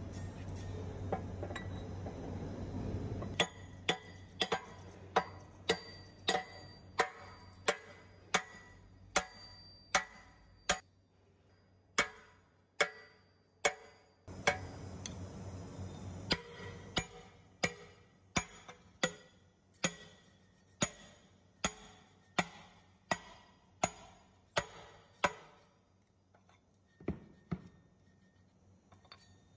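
Background music with a steady ticking, chiming beat, about two strikes a second, that stops near the end; a low hum fills the first few seconds.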